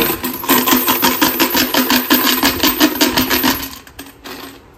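Coins shaken inside a black plastic jar, rattling in a fast, even rhythm of about seven shakes a second, with a steady tone underneath. The rattling stops about three and a half seconds in.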